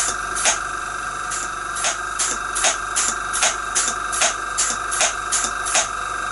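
Stuart model steam hammer running under hand valve control, its ram striking the anvil in regular blows about two and a half a second over a steady hiss, working again with its replaced piston. The blows stop near the end while the hiss carries on.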